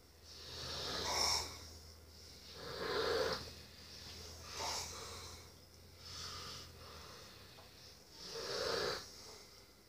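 A sleeping person breathing noisily and snoring, with a swell of breath every two seconds or so. A faint low hum underneath stops about seven seconds in.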